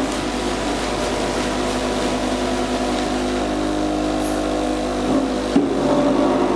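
Precast concrete casting machinery running with a steady mechanical hum as wet concrete drops from a hopper chute into steel moulds, with a single sharp knock about five and a half seconds in.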